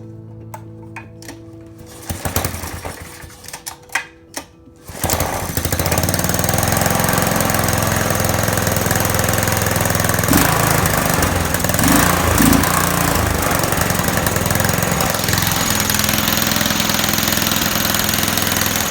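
Tecumseh 150cc mini bike engine being started: a few short bursts of cranking, then about five seconds in it catches and runs steadily, with a couple of brief louder surges near the middle.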